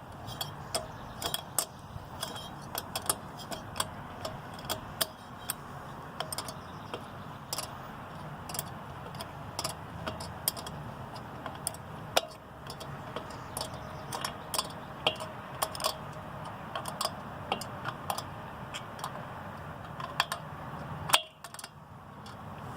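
Hand tools working small nuts onto mounting studs: a wrench clicking and tapping on the nuts and metal parts in irregular light clicks as the two nuts are tightened a few turns at a time, with one louder click near the end.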